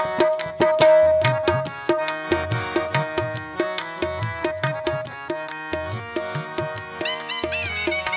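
Background music: a steady hand-drum beat under sustained melodic notes, with a wavering melody line coming in near the end.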